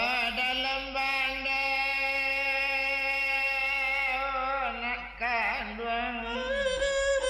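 Minangkabau rabab pasisia singing: a singer enters on a long, wavering held note, breaks into a quick ornamented run about five seconds in, then settles on a lower held note, with the rabab fiddle accompanying.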